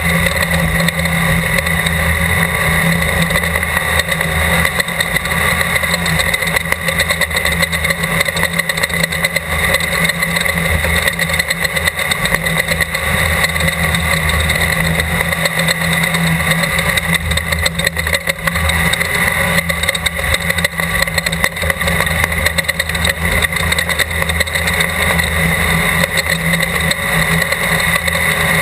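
Class 12 desert race car's engine running hard and steady at speed, its note holding roughly one pitch, under a continuous dense rush of noise.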